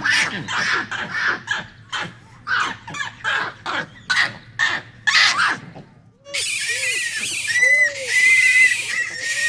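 Japanese macaque troop calling: a run of short, harsh calls about two a second. About six seconds in, these give way to short rising-and-falling coo calls over a steady hiss.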